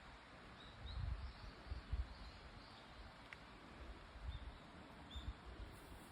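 Faint short bird chirps, repeating irregularly, over low rumbling gusts and quiet outdoor background noise.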